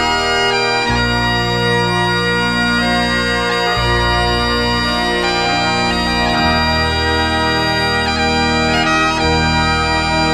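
Bagpipe music: a slow melody of long held notes.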